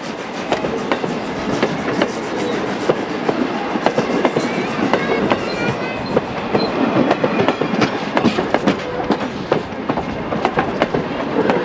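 Railroad passenger coaches rolling past on jointed track, their steel wheels clicking over the rail joints in a steady clickety-clack.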